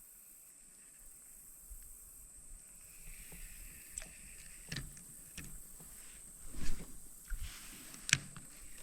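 Light knocks and clicks of fishing gear and paddle against a small boat's hull, sparse and starting about four seconds in, with a few louder knocks near the end.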